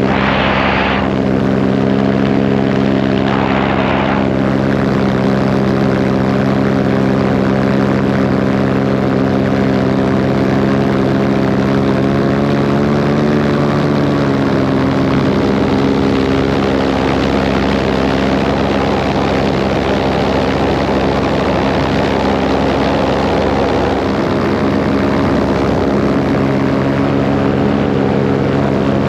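Paramotor engine and propeller running steadily at a constant throttle, its pitch wavering briefly about halfway. Two short rushes of noise come in the first few seconds.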